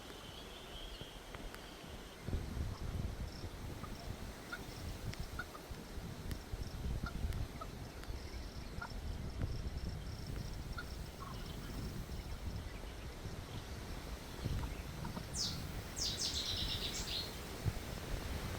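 Outdoor ambience: wind rumbling on the microphone, with faint scattered bird chirps and a short run of quick, sweeping bird call notes near the end.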